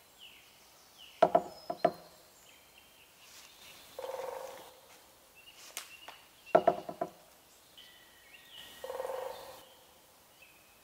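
Woodland ambience with small birds giving short high calls, broken twice by a loud cluster of sharp knocks about five seconds apart. Each cluster is followed a few seconds later by a softer, brief rushing burst.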